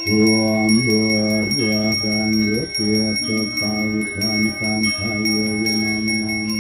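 Balinese genta, the priest's bronze hand bell, rung continuously with quick, even clapper strokes, giving a steady high ringing. Under it a man chants a mantra on long held notes.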